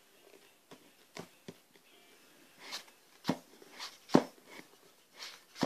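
Handling noise from a phone camera being held and moved: scattered soft clicks and knocks with a few brief rustles.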